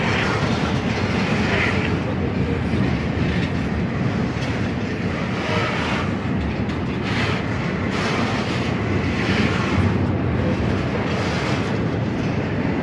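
Ferromex double-stack intermodal container well cars rolling past close by: a steady rumble of steel wheels on rail, with a few clacks from about six to ten seconds in.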